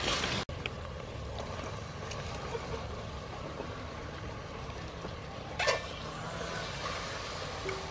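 Cuttlefish dropping into a pot of sauce, then a wooden ladle stirring them in a metal pot over a steady low rumble, with one brief clatter about five and a half seconds in.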